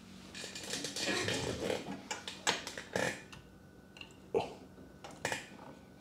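Hands working at a small refrigerator compressor while fitting its starter relay and overload parts: a rustle of handling, then four short sharp clicks and knocks of small parts and wires being pressed into place. The compressor itself is not running.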